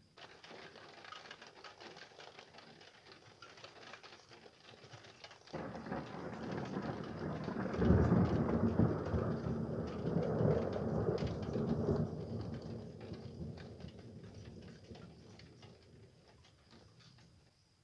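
A peal of thunder over rain: the rumble comes in sharply about five seconds in, is loudest in the middle and slowly dies away.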